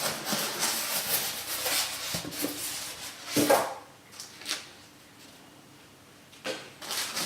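Cardboard box and packing material being handled, rubbing and rustling. There are a few louder scrapes about three and a half, four and a half and six and a half seconds in, and it is nearly quiet in between.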